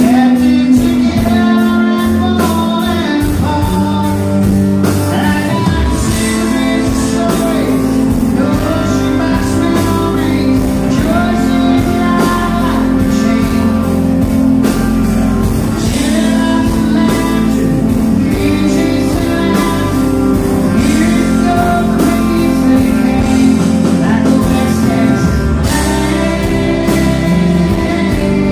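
Live country-rock band playing: strummed acoustic guitar, electric guitar, bass and drum kit keeping a steady beat, with a male lead vocal singing over it at times.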